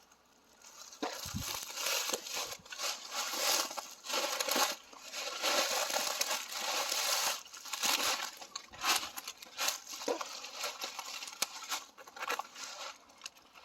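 Footsteps crunching and rustling through dry leaves and brush, an uneven run of crinkling and crackling.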